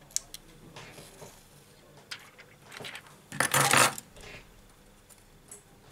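Metal tweezers clicking and tapping against a phone display. About three and a half seconds in, the protective film is peeled off the new LCD screen with a short, loud crackling rip.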